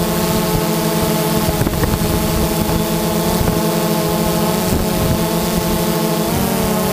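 DJI Phantom 2 quadcopter's electric motors and propellers humming steadily while it hovers, picked up by the GoPro on board. Near the end the pitch rises as the motors speed up.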